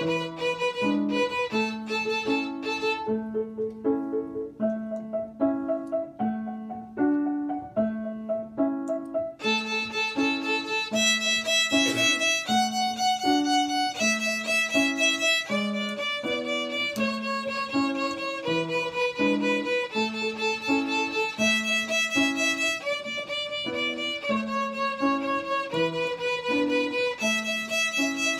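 Violin playing a melody in held notes over a steady, repeating piano accompaniment. The violin turns softer for several seconds a few seconds in, then comes back fuller about ten seconds in.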